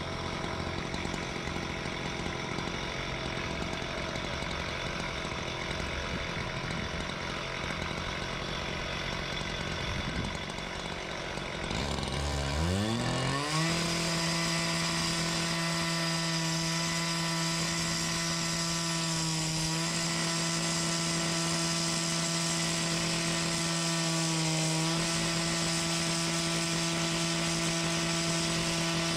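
Petrol two-stroke disc cutter (cut-off saw) running low at first, then revved up a little before halfway and held at full speed while cutting into concrete. Its pitch sags briefly twice as the blade takes load.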